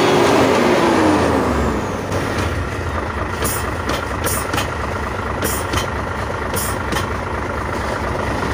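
Hino 500 truck's diesel engine running, its speed dropping back to a steady idle about two seconds in. Several short, sharp hissing ticks come over the idle in the middle.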